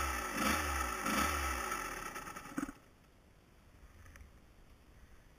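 Dirt bike engine revving up and down in three quick surges, then cutting off abruptly about two and a half seconds in, leaving only quiet with a few faint knocks.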